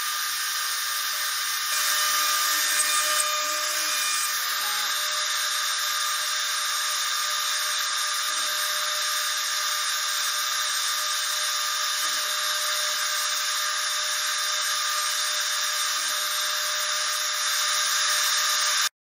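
Avid CNC router spindle running at speed with a steady high whine as its end mill cuts a pocket into plywood, with softer pitch sweeps underneath as the machine moves. The cutting gets louder for a moment a couple of seconds in and again near the end, then cuts off suddenly.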